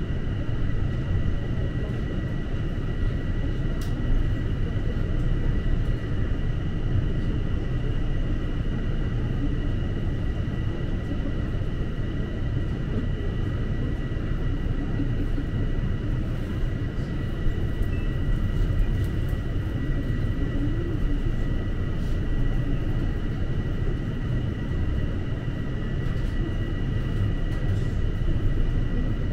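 Toronto subway train running through the tunnel, heard from inside the car: a steady rumble of wheels on track with a thin, steady high whine over it.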